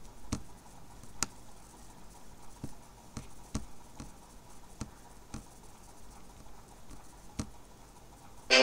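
Computer mouse clicking now and then: about nine sharp, single clicks at irregular intervals over a faint background hiss. Right at the end, music with violin starts abruptly.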